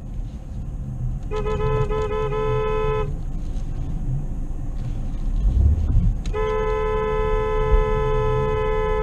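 Car horn honking: a few quick honks run together a little over a second in, lasting about two seconds, then one long blast of about three seconds from about six seconds in. A low vehicle rumble runs underneath.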